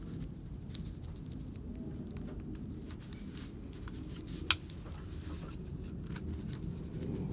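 Small clicks and handling of a Mazda RX-7 FD door handle assembly being worked by hand as its return spring is forced into place. One sharp metal click about four and a half seconds in is the loudest sound.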